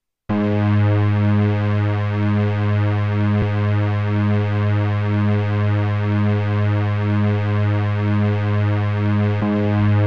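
Electronic music: a sustained, deep drone chord that comes in suddenly just after the start and holds steady, with a slow wavering pulse in its lower tones and a single brief click about three and a half seconds in.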